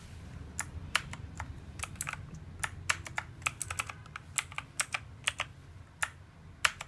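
Keys on a Lightning Sport mechanical keyboard with clicky blue switches being pressed one at a time: a couple of dozen sharp clicks at an uneven pace.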